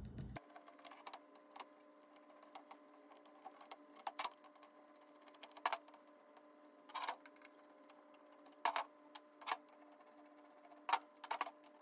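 Faint, scattered clicks and ticks of a screwdriver backing out the body screws of an early Ford flathead fuel pump, with small screws set down on a steel bench, over a steady low hum.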